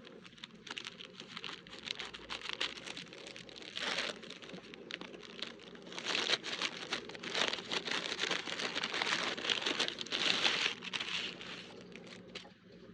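Packaging crinkling and rustling as it is handled and opened by hand, busiest about halfway through, then easing off near the end.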